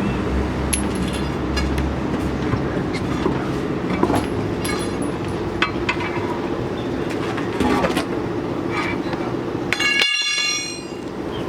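Steady mechanical rumble with repeated sharp metallic clinks and taps, like steel tools on truck wheel parts. About ten seconds in comes a brief high-pitched whine with many overtones, and the rumble then drops off.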